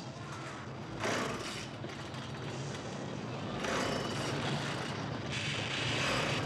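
Chainsaw engine running, revved up three times: about a second in, near the middle, and again near the end.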